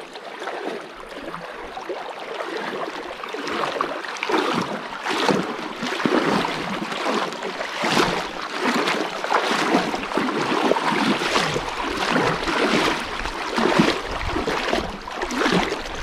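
River water splashing irregularly over the rushing of the stream.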